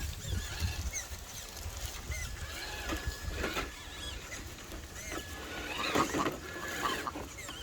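Short chirping bird calls repeating throughout, over a faint steady whine, with a few knocks, the loudest about six seconds in.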